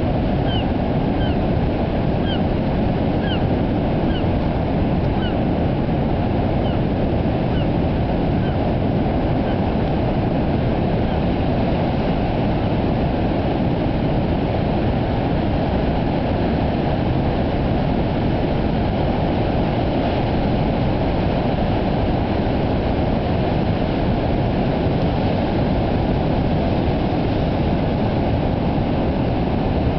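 Large ocean surf breaking on the beach, a continuous heavy rush of water. A few short high chirps sound in the first several seconds.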